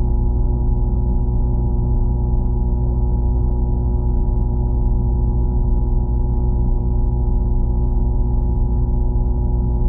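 A steady, unchanging drone of several held tones over a low hum.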